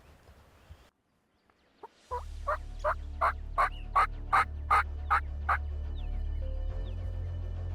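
A series of about eleven turkey yelps, close to three a second, growing louder and then fading, starting about two seconds in. A low steady music drone comes in underneath at the same moment.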